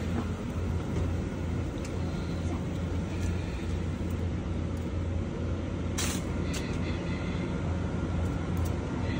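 A vehicle engine idling with a steady low hum, and a single sharp click about six seconds in.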